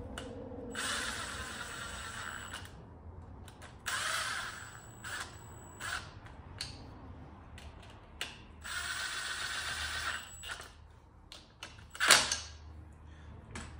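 Cordless impact driver spinning in the clutch cover bolts of a Yamaha YZ250 engine in three short runs with brief blips between, each run a high motor whine. Small tool clicks between the runs and one sharp clack near the end.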